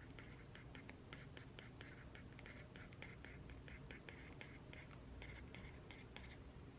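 Pen writing on paper: quick, irregular short scratching strokes, faint, which stop shortly before the end.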